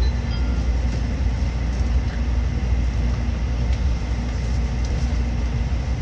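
Steady low rumble of a Tokaido Shinkansen train in motion, heard from inside the passenger car.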